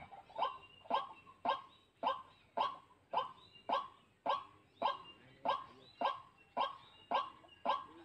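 White-breasted waterhen (dahuk) calling: a loud, monotonous single-note call repeated steadily, about two a second.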